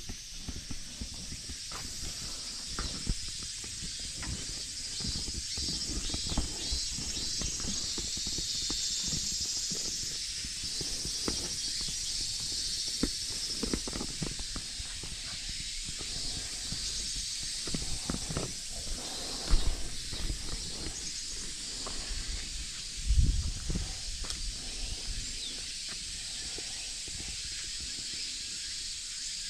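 Cicadas droning steadily in a high, hissing chorus, over footsteps crunching on gravel, with two heavier steps about twenty seconds in.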